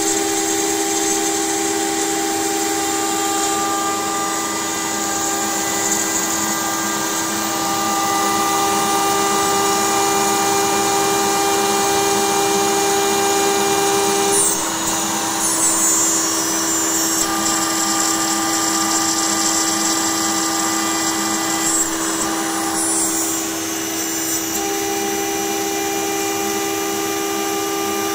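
CNC router spindle running with a steady whine while milling 3 mm plywood, the bit's cutting noise over it. The sound shifts about halfway through and again a few seconds later as the cut changes.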